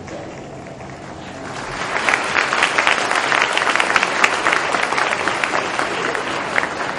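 Audience applauding: the clapping swells about a second and a half in and stays dense, with a few louder single claps standing out.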